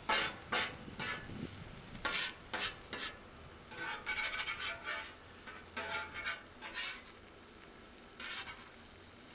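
Metal spatula scraping and tapping across the steel top of a Cuisinart 360 XL griddle in short, irregular strokes, pushing and rolling omelets. A faint sizzle of eggs and fillings cooking runs underneath.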